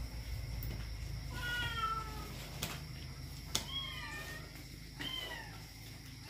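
A cat meowing three times, short falling calls, over a steady low rumble, with a couple of sharp clicks.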